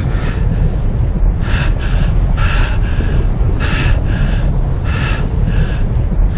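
A man panting hard in ragged gasps, each breath a quick in-and-out pair, roughly once a second, over a loud steady low rumble.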